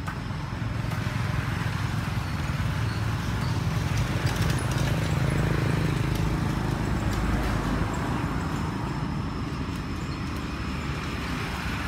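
A motor vehicle passing by, its low rumble rising for a few seconds, peaking about halfway through, then fading away.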